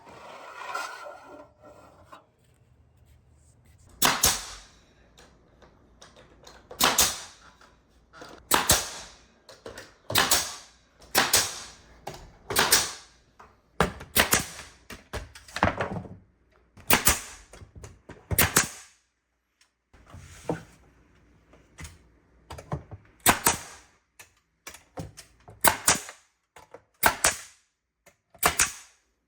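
Nails being driven into wooden crown molding: a string of sharp single cracks, roughly one every one to two seconds, starting a few seconds in.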